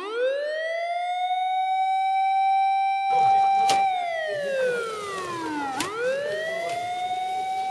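High-pitched whine of a small electric RC car motor: the pitch climbs quickly and holds steady, falls steadily for about two seconds as it slows, then snaps back up and holds again. Two sharp clicks come about four and six seconds in.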